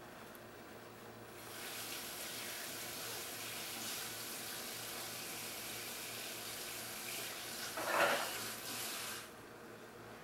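A steady rushing hiss sets in about a second and a half in and cuts off suddenly near the end, swelling louder briefly about eight seconds in.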